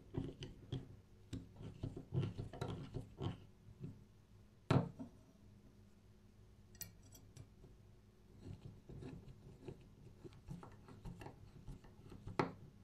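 Screwdriver turning small slotted screws into a wooden base: close, dry clicks and scrapes of the blade in the screw slots and the threads biting. A single sharp knock just under five seconds in, and another near the end.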